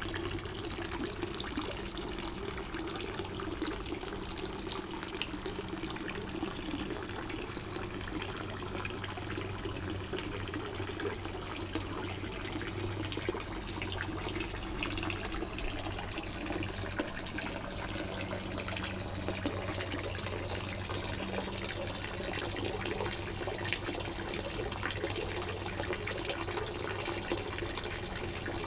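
Dolphin statue fountain splashing steadily into a garden pond, with a low steady hum underneath.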